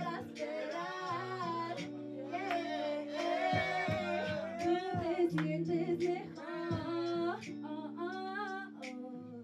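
A singer's wavering, drawn-out melody over a backing track of held low chords and light percussion hits.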